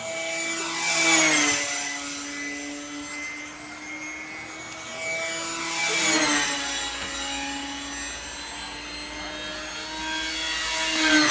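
Control-line aerobatic (F2B stunt) model plane's engine and propeller running steadily as the plane circles on its lines. It swells and drops in pitch each time it sweeps past, three times about five seconds apart.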